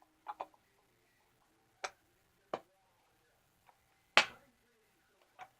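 A handful of short, sharp plastic clicks and knocks, about five, spaced irregularly with the loudest a little past four seconds in, as a fidget cube is handled and fitted into its small case.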